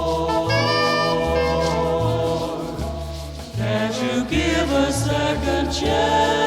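Background music with choir-like singing over a steady, regularly alternating bass line.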